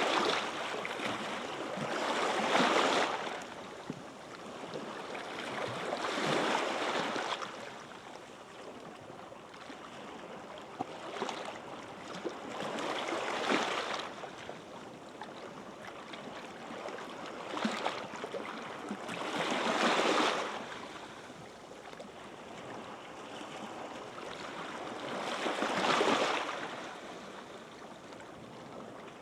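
Gentle sea waves breaking and washing up the sandy beach shore, one every few seconds, each swelling and then fading back into a soft steady wash.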